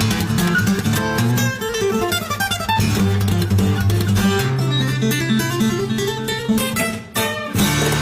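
Background music led by plucked acoustic guitar, with steady bass notes; it drops out briefly about seven seconds in.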